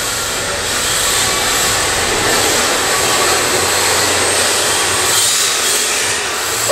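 Several MST RRX-D 2WD radio-controlled drift cars running laps, heard as a steady mechanical whir and hiss from their electric motors and drivetrains.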